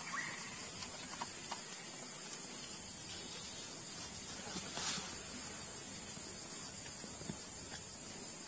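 Steady high-pitched drone of forest insects, with a few faint clicks now and then.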